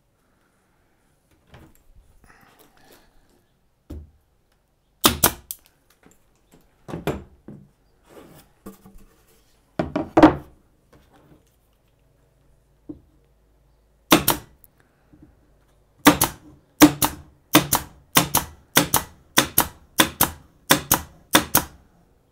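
Air-powered pin nailer driving pins into wood. After a few separate knocks and shots, it fires a quick, even run of about a dozen shots, two or so a second, over the last six seconds.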